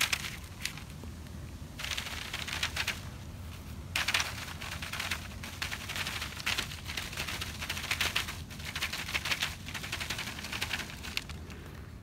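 Mosquito-trap filter of window screen over hardware cloth being shaken and patted by hand over a paper sheet to knock dried dead mosquitoes loose: rapid crackly tapping and rattling in bouts, the longest from about 4 seconds in until shortly before the end.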